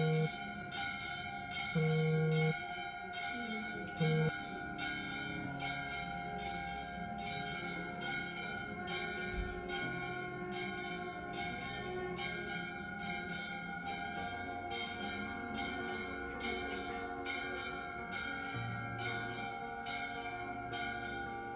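Bells ringing steadily, struck about twice a second over a continuous ringing tone, with a few short low held notes in the first four seconds.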